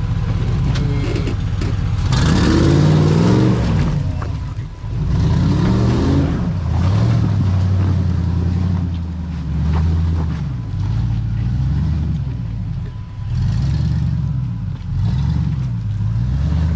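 Off-road rock crawler's engine revving up and easing off several times as it works through a slick, muddy trail section.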